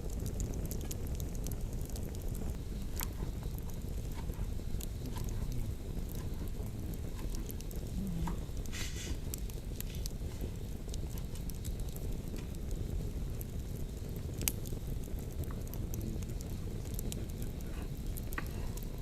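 Campfire burning, with scattered sharp crackles and pops over a steady low rumble, and a brief hiss about nine seconds in.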